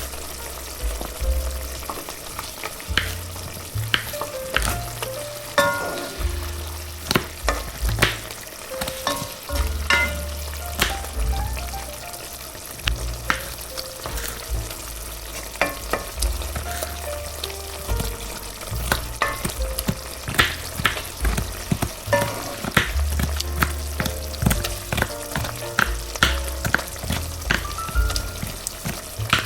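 Food sizzling in a frying pan, with frequent sharp clinks and scrapes of a utensil stirring it.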